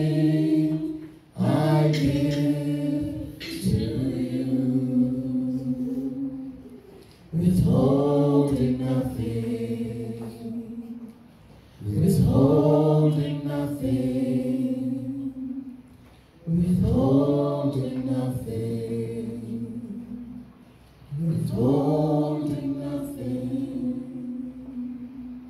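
A small group of worship singers singing a slow song without instruments, amplified through microphones, in long held phrases that start about every four to five seconds.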